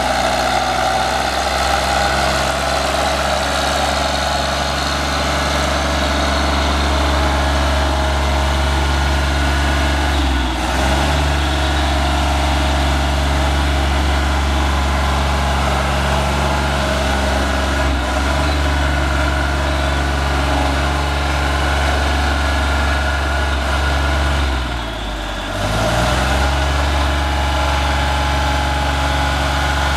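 Deutz diesel engine of a 2006 JLG 450AJ articulating boom lift running steadily as the machine drives and works its boom. It sags briefly in pitch three times under load, the deepest and quietest dip a little over three quarters of the way in, then picks back up.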